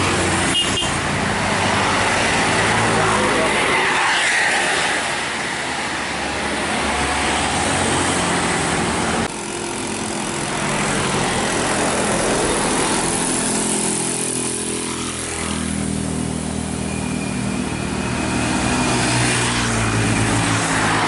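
Road traffic on a hill climb: a bus and motorcycles pass close by with engine and road noise. After a break about nine seconds in, a bus's diesel engine climbs the hill toward the listener, its steady engine drone growing louder near the end.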